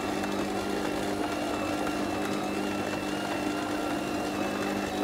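Electric stand mixer running steadily, its motor humming as the beater churns oatmeal cookie dough in a stainless steel bowl.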